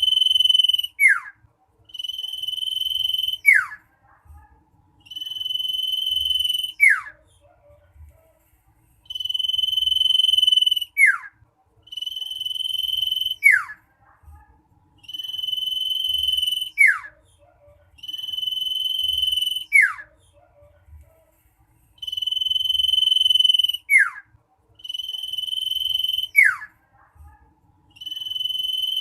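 Common iora (cipoh) song, loud and insistent: a steady high whistle of about a second and a half ending in a quick falling note, repeated about every three seconds, ten times over.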